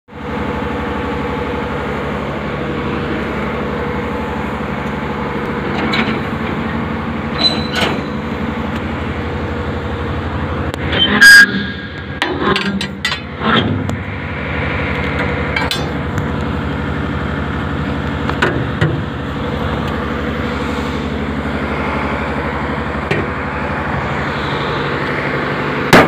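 An engine running steadily, with scattered metallic knocks and clinks over it; the loudest is a sharp clank about eleven seconds in, followed by a short burst of knocks.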